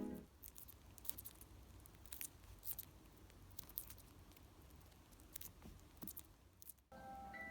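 Faint, scattered small clicks and scratches from pet budgerigars moving about and pecking in their cage, over a low room hum. Near the end it cuts out briefly and chiming music begins.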